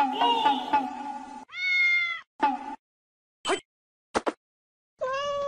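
Domestic cats meowing, a mother cat with nursing kittens: a rapidly pulsing call for the first second and a half, then a long drawn-out meow, a short meow, two brief high squeaks and another meow near the end.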